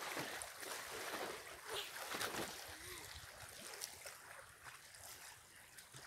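Faint, irregular splashing and sloshing of people swimming and wading in lake water.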